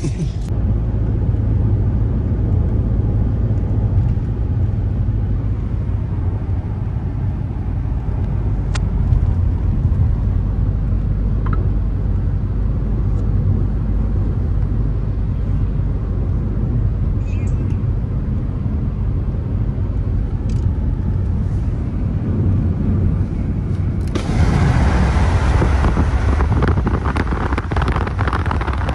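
Car cabin noise while driving at speed: a steady low rumble of tyres and engine. Near the end a louder rush of wind and road noise joins in.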